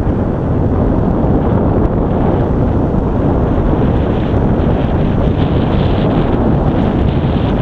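Wind buffeting the microphone of a camera carried on a Solowheel electric unicycle moving at speed, a loud, steady rumble.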